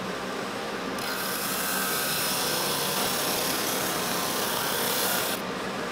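Performax 16-32 Plus drum sander running, its abrasive drum sanding the face of a segmented wooden ring as the conveyor carries it through. The loud sanding hiss starts about a second in and breaks off near the end, over the steady hum of the sander's motor.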